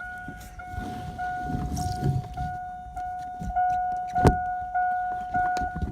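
A steady electronic tone held on one pitch, stepping in short pulses about twice a second like a vehicle warning chime. Under it are rustling and clunks of handling, with one sharp knock about four seconds in.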